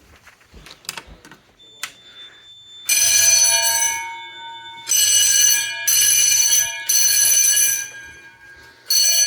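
Fire alarm bells ringing in bursts of about a second, starting about three seconds in after a few faint clicks. The bells are sounding in alarm with the building's main power cut off.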